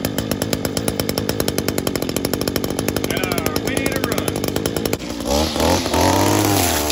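Echo SRM-225 string trimmer's small two-stroke engine running after the cracked primer bulb is replaced, with a fast, even pulsing. About five seconds in it changes to a smoother note that rises and falls.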